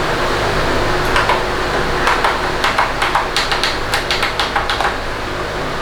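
A run of irregular light clicks and taps over a steady background hum.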